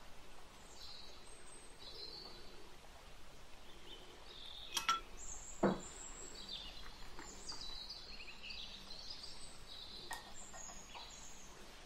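Wire whisk stirring dry flour and cinnamon in a glass bowl, a soft scratchy mixing, with two sharp clinks near the middle as metal meets the glass.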